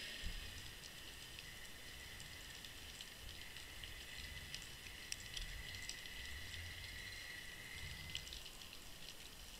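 Underwater sea-bed ambience picked up by a submerged camera: scattered faint clicks and crackles over a low uneven rumble of water moving around the housing, with a faint steady whine that stops near the end.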